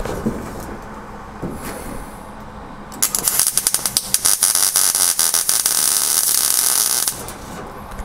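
MIG welder laying a rosette (plug) weld through a drilled hole into the panel behind: a loud, fast, steady crackle and sizzle of the arc that starts about three seconds in, runs about four seconds and stops abruptly.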